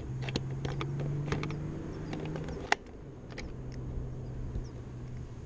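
Scattered small clicks and knocks of the e-bike battery being handled and fitted back into the frame, with one sharp click about two and a half seconds in, over a steady low hum.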